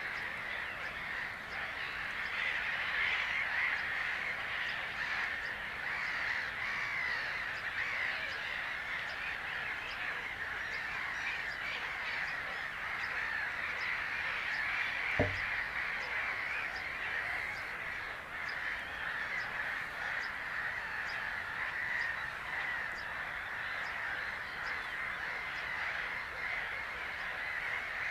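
Dense, continuous chatter of many birds calling together, with one short low thump about fifteen seconds in.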